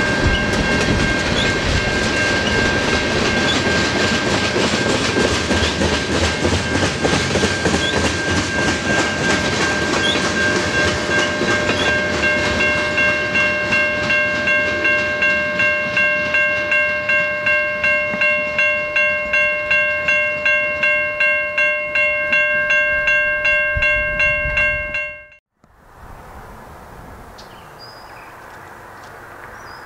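Freight train of tank cars rolling past a grade crossing, wheels clattering over the rails, while the crossing warning bell rings at about two strikes a second. Near the end the sound cuts off suddenly to a quiet outdoor background.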